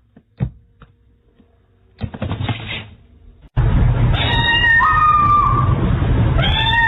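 A cat meowing twice in long drawn-out calls that rise and then hold steady, over loud low background noise. The first seconds are quiet apart from a few faint clicks.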